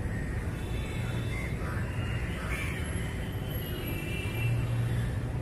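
Outdoor background noise: a steady low rumble like distant road traffic, with a few short high-pitched calls.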